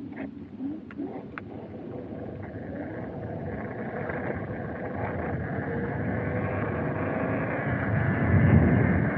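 Wind and road noise building up as a rider sets off and gathers speed, with a few light clicks in the first second or so and a low gusty rumble on the microphone near the end.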